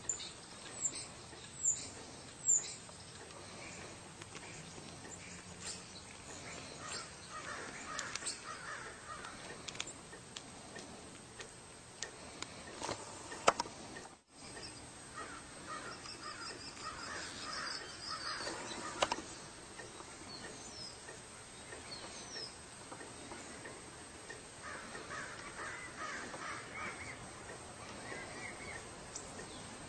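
Birds calling: several bursts of harsh, repeated calls, with a few short high chirps in the first few seconds and one sharp click about halfway through.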